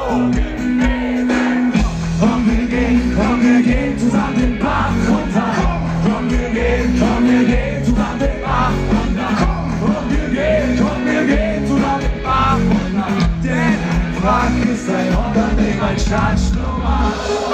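Live rock band playing a song through a large festival PA, with bass, drums and a lead vocal, heard from within the audience.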